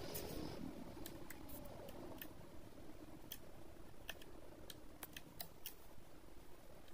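Faint, scattered small clicks and ticks from handling a 2.5-inch laptop hard drive in its metal mounting caddy.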